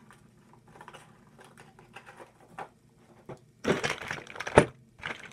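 Handling noise: faint scattered clicks and rustles, then a loud crunching rustle lasting about a second near the end.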